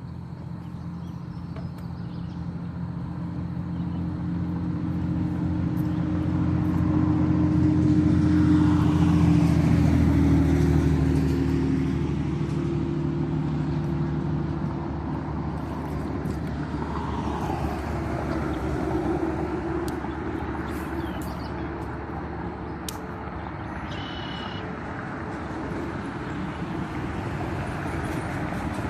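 A motor engine running with a steady hum that grows louder to a peak about eight to ten seconds in, drops a little in pitch there, then fades into a steady rushing noise.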